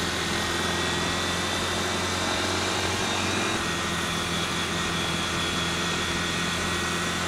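Motorcycle riding at a steady speed: an even engine hum under a steady rush of wind and road noise.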